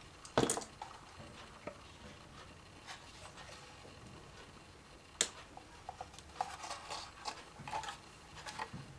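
Handling noise as a graphics card is turned over in the hands above its box: a sharp knock about half a second in, a single click a little after five seconds, and scattered light taps and rustling near the end.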